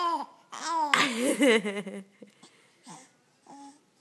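Baby laughing and cooing: a short call, then a longer giggle with wavering, pulsing pitch that fades after about two seconds into a few faint breathy sounds.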